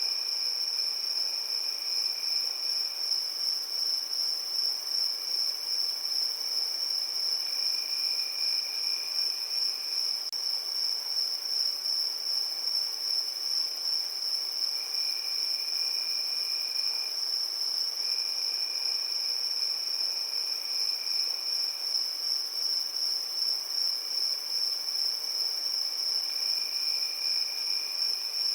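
Crickets chirping in a continuous high-pitched trill, with a second, lower-pitched chirping that comes and goes every few seconds.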